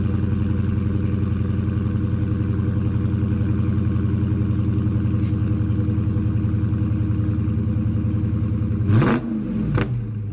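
Dodge Charger Scat Pack's 392 HEMI V8 running steadily, then blipped near the end: one quick rev up and back down, followed by a second short blip, before it settles back to a quieter idle.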